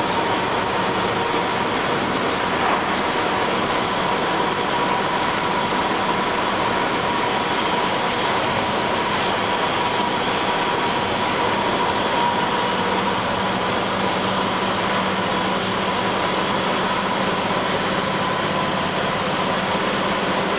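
Inside a 1999 International school bus under way: the diesel engine runs steadily under road noise, with a steady whine and the body rattling and clicking throughout. A lower engine hum grows stronger about thirteen seconds in.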